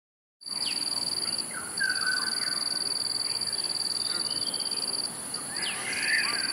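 Outdoor nature ambience cutting in about half a second in: a steady, high-pitched pulsing trill of insects, with several short bird calls sweeping down in pitch over it.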